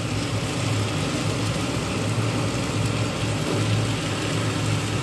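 Vegetables and small fish frying in a kadai as the mustard paste goes in, over a steady low hum.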